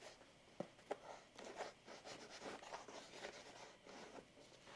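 Near silence with faint rustling of clothing and hand movement, and a couple of light clicks in the first second.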